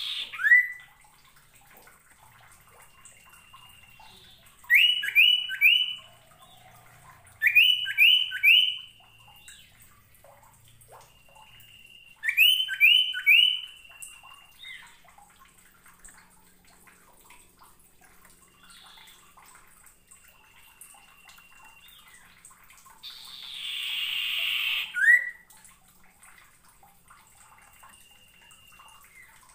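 A caged common iora (sirtu, cipoh) singing: three phrases of three quick down-slurred whistles, with single level whistled notes held between them. A rushing noise swells for about two seconds near the end, just before a last falling note.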